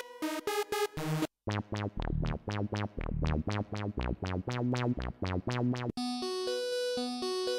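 NX-Synth One software synthesizer playing a MIDI sequence through several presets: a choppy trance-gated lead for about a second, then after a short break a bass preset playing a quick run of short, fast-decaying notes. About six seconds in, a sustained lead preset takes over with a melody.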